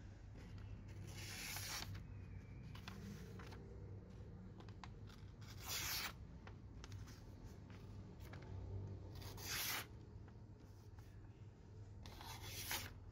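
Knife blade slicing through a sheet of paper, four short cutting swishes a few seconds apart.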